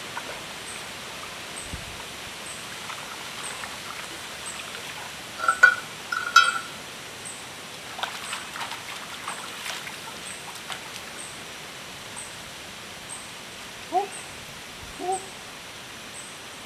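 Forest river ambience: a bird gives two short, loud calls about halfway through, and two lower, curved call notes come near the end, over a steady hiss with a faint regular ticking. Soft water sounds come from a woven basket dipped and moved in shallow river water.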